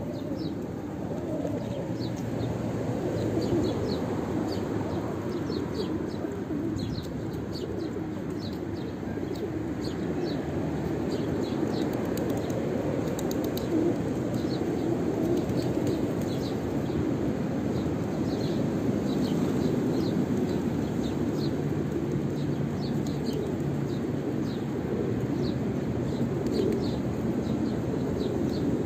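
Flock of feral pigeons feeding, with a steady low murmur of cooing and many short high chirps scattered throughout.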